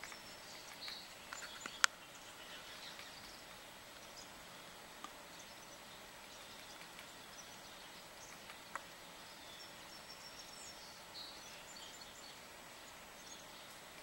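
Faint outdoor ambience with scattered short, high chirps of small songbirds, and a few sharp taps, the loudest about two seconds in.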